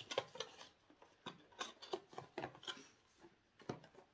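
Cardboard and small product packaging being handled: scattered soft clicks, taps and rustles at an uneven pace.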